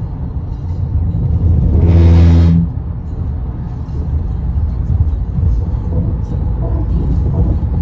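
Car tyres on highway pavement heard from inside the cabin: a steady low road rumble with hiss. About two seconds in comes a brief, louder low buzz lasting just under a second.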